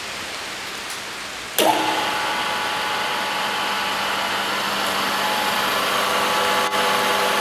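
FORADIA GK 50 1500 radial drill running: a steady hiss, then about one and a half seconds in the spindle drive kicks in with a sudden jump in loudness and settles into a steady gear whine.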